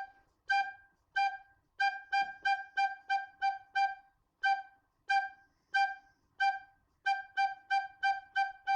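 Soprano recorder playing the note G over and over, in short, gently tongued notes without squeaks. The notes come in a rhythm of slower single notes broken by two runs of quicker ones.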